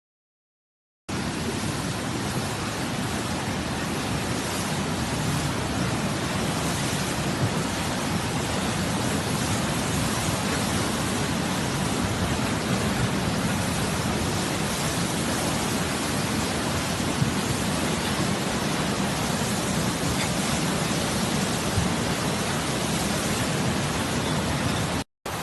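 Heavy rain falling, a steady even hiss that starts suddenly about a second in.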